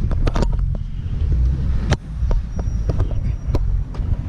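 2010 Chevrolet Camaro SS's 6.2-litre V8 running at low speed through a newly fitted Borla muffler, a steady low rumble heard from inside the cabin, with several sharp clicks and knocks over it.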